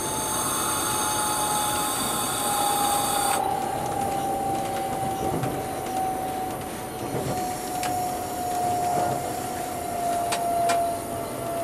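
Alstom Coradia Meridian (ETR 425) electric multiple unit running, heard from the driver's cab: a steady traction-motor whine slowly falls in pitch as the train slows for a station stop. A high wheel squeal cuts off suddenly about three seconds in, and a few sharp clicks come near the end.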